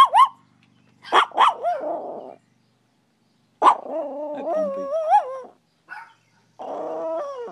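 Chihuahua howling in a run of short yips and pitch-wavering howls. The longest howl starts about three and a half seconds in and lasts nearly two seconds, its pitch wobbling up and down, with another howl near the end.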